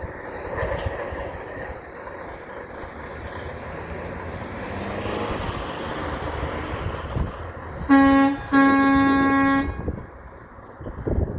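A big truck passing with its engine and road noise building, then two blasts on its air horn about eight seconds in: a short toot followed by a longer blast of about a second.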